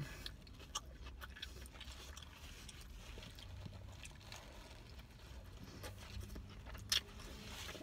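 A person biting into and chewing a hot dog in a soft bun, close to the microphone: faint wet mouth clicks and smacks, with a sharper click under a second in and another near the end, over a low steady hum.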